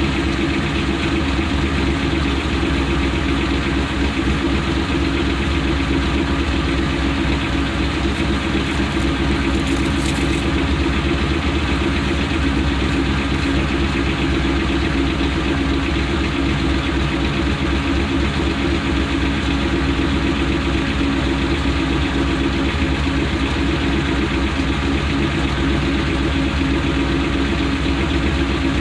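Car engine idling steadily, heard from underneath the car close to the exhaust pipe.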